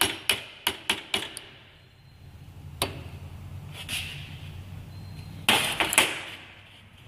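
Sharp metal taps on a small eyeglass screwdriver as it is driven in behind the C-clip in a Ford 6.0L diesel fuel injector's top bore, to pop the clip out. About six quick taps in the first second and a half, a single tap a little later, and two louder knocks near the end.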